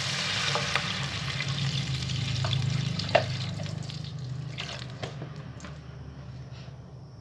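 Water poured into a hot pot of just-fried garlic and minced pork, sizzling and hissing loudly at first, then gradually dying away as the water cools the pan, with a few small clicks.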